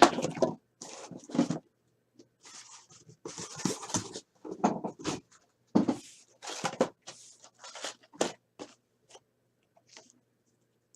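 Cardboard boxes and packaging being handled and slid about, in irregular bursts of scraping and rustling with a few light knocks.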